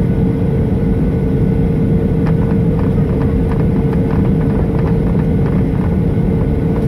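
Cabin noise of a Boeing 737-900 with its CFM56 jet engines running while it taxis: a steady, loud low rumble with a constant hum over it. A few faint ticks or rattles come through in the middle.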